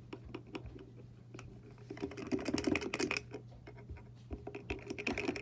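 Rapid light clicks and small clatter of objects being handled, busier and louder from about two seconds in, over a steady low hum.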